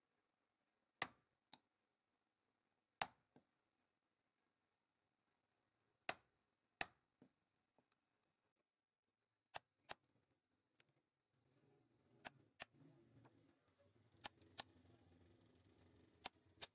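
A wood chisel struck by hand to cut a mortise into a turned wooden bed leg: sharp, separate knocks a second or more apart, often a hard strike followed by a lighter one. A low steady drone comes in about eleven seconds in.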